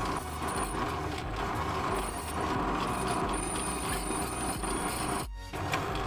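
Bench drill press running while its bit grinds against a very hard metal part without cutting in. A thin high whine joins about three seconds in, and the sound breaks off for a moment near the end.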